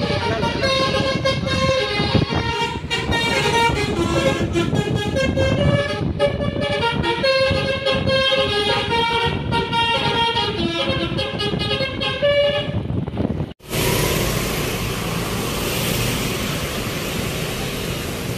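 Multi-tone telolet horn of an odong-odong mini tourist train playing a melody of held notes that step up and down. It cuts off suddenly about thirteen and a half seconds in and gives way to a steady rushing noise.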